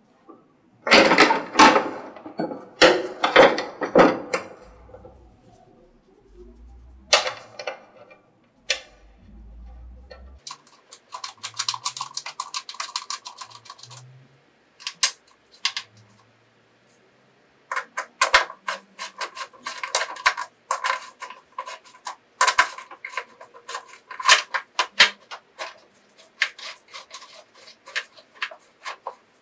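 Plastic cowling of a scroll pump knocking and rubbing as it is worked over the pump body and pushed into place, then fast runs of small clicks from about ten seconds in as its screws are turned in with a hand tool.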